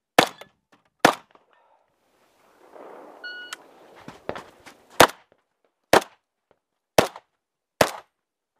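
Shotgun shots, two near the start, then a short electronic shot-timer start beep, then five more shots about one a second.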